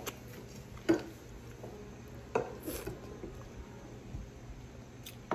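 Person eating a ripe mango straight off the peel: a few short, sharp, wet smacks of lips and mouth on the fruit, spaced out over several seconds.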